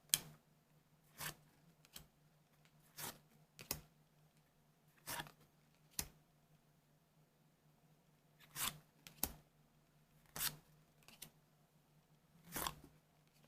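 Trading cards from a booster pack being handled one at a time: about a dozen short, separate flicks and rustles at irregular intervals, over a faint steady hum.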